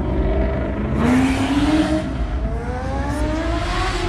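A car accelerating hard, its engine note climbing, breaking off about two seconds in as it shifts, then climbing again through the next gear.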